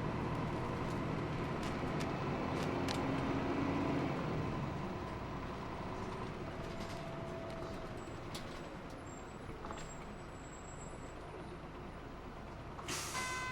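Hino Blue Ribbon II city bus's diesel engine and road noise heard from inside the cabin, louder for the first few seconds and then easing off. Near the end comes a short hiss together with a beeping tone.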